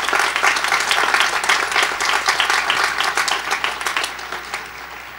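Audience applauding, many hands clapping; the applause tapers off over the last couple of seconds.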